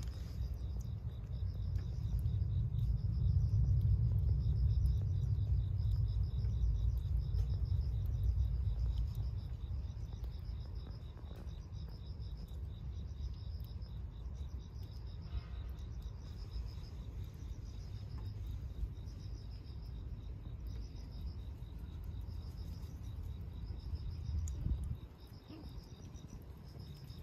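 Insects, crickets by their sound, chirping in a steady, regular rhythm, high-pitched, over a low rumble. The rumble is loudest in the first few seconds and cuts off about 25 seconds in.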